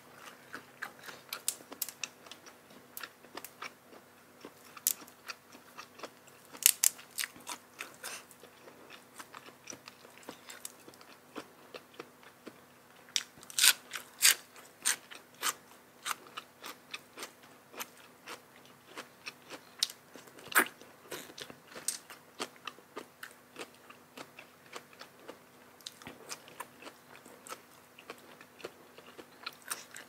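Close-miked eating: a person chewing and crunching through spicy seafood papaya salad with crisp raw vegetables, in irregular crisp crunches and wet mouth clicks. The loudest crunches come about a quarter of the way in, around halfway, and about two thirds through.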